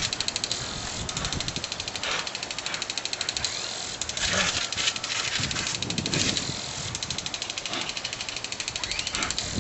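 Water hissing out of a garden hose running on the lawn as a dog snaps and splashes at the stream, with a fast, even pulsing throughout.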